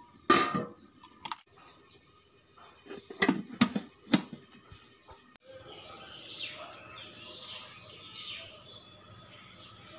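A sharp knock and a few rustling handling noises, then from about five and a half seconds in, birds chirping over a steady outdoor background with a faint, even high tone.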